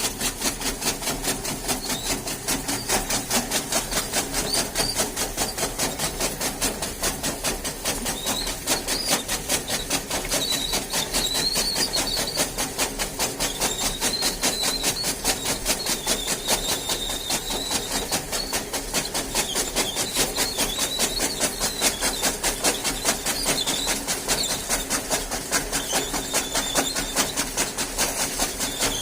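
A buffalo being milked by hand: squirts of milk hitting a pail in a fast, even rhythm.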